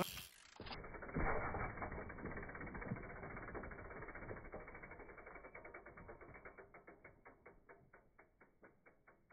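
Mountain bike's rear hub ratchet ticking rapidly as the bike coasts, the ticks slowing and fading over the last few seconds. A short rush of noise comes right at the start.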